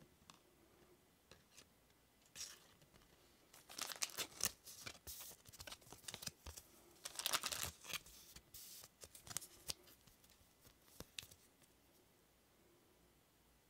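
Two Pokémon trading cards handled and slid against each other: crisp, scratchy rustles in irregular bursts, thickest through the middle and thinning out near the end.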